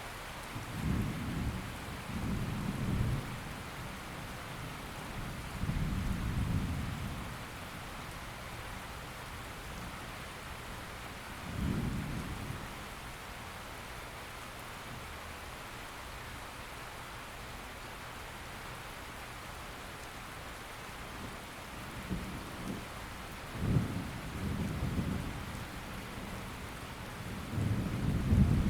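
Steady rain hiss with low rolls of thunder breaking in every few seconds; a louder roll builds near the end.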